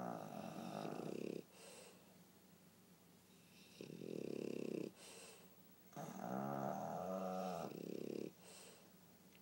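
A pug and a French bulldog, both flat-faced breeds, snoring in their sleep. There are three long snores in slow succession, each lasting a second or more, with a short airy breath after each.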